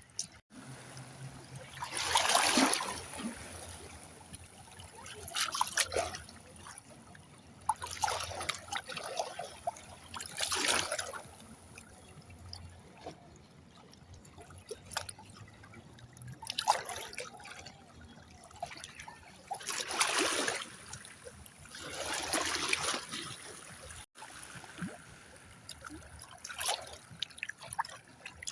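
Water trickling and splashing in irregular surges every few seconds, over a faint steady high hiss.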